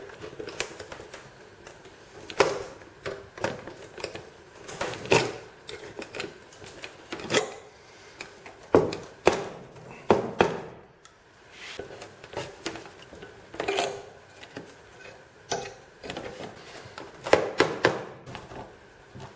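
Pliers gripping and twisting copper wire stitches that draw thin plywood kayak panels together, giving an irregular run of sharp clicks, scrapes and knocks, several of them loud.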